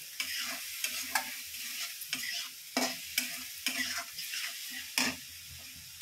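Spatula stirring and scraping wet masala (ground spices and ginger-garlic paste, with a little water just added) around a non-stick kadai, the mixture sizzling in hot oil. Irregular scrapes and taps of the spatula on the pan sound over a steady sizzle.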